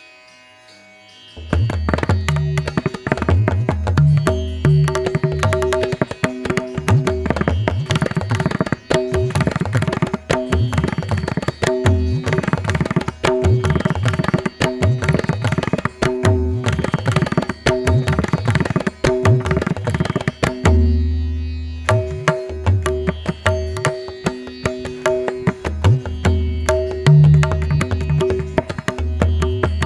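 Background music with rhythmic drumming over steady sustained tones, starting about a second and a half in.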